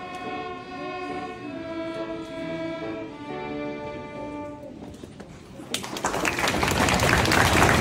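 School string orchestra playing slow held chords in several parts, the final chord dying away about five seconds in. The audience then breaks into applause that quickly grows louder.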